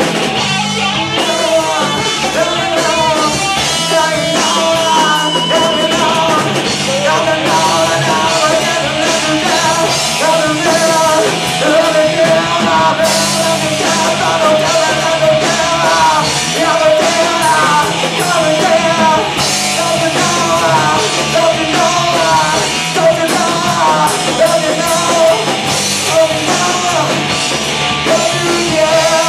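Loud rock song with sung vocals over guitar and drums.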